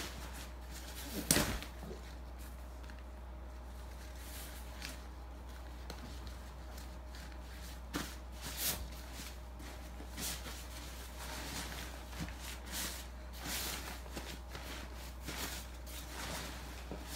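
Arc'teryx Pack Shelter M nylon rain cover rustling and its webbing straps and buckles being handled as it is fitted over a backpack, with one sharp knock about a second in and scattered softer clicks and rustles after, over a steady low hum.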